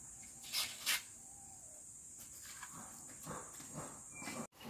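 Dry ingredients poured and sprinkled into a clay pot of raw cashews: two short hissing rustles about half a second and a second in, then soft scattered pattering. A steady high insect drone runs underneath and cuts off just before the end.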